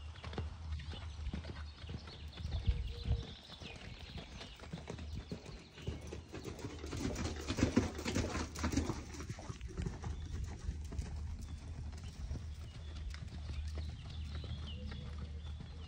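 Hoofbeats of a horse moving over soft sand arena footing, a steady run of muffled thuds that grow loudest about halfway through as the horse passes close by.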